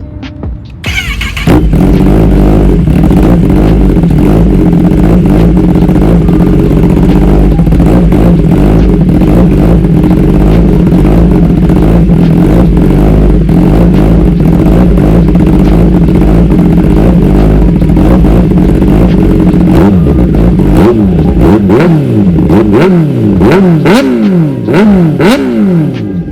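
2021 Kawasaki ZX10R inline-four sport bike engine through a full titanium SC Project exhaust, loud, coming in about a second in and running at a steady idle. In the last several seconds it is revved hard, with about half a dozen quick throttle blips that rise and fall in pitch.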